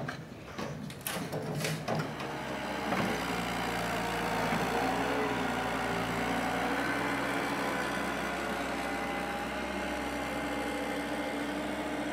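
Skid steer loader's diesel engine running steadily, starting about three seconds in. Before it come a few short knocks.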